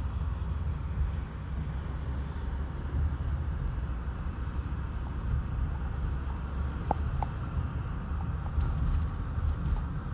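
Steady low rumble of a car driving on a highway, tyre and engine noise heard from inside the cabin.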